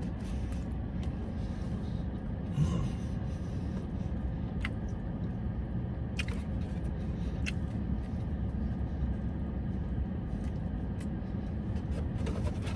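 Steady low rumble of a car's idling engine heard inside the cabin, with a few faint clicks.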